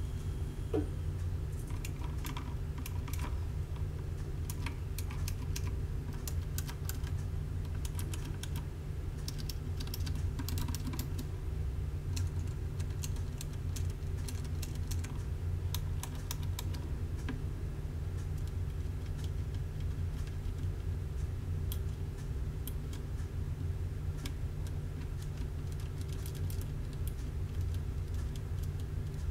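Mechanical keyboard keys with Cherry MX Navy switches being typed on: irregular key clicks and clacks, with little to no click from the switches' click mechanism. A steady low hum runs underneath.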